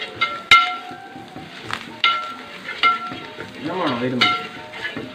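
Metal spatula stirring thick curry masala in a large metal pot, knocking against the pot about six times with short ringing clanks, the loudest about half a second in. The masala sizzles under it as it fries in oil.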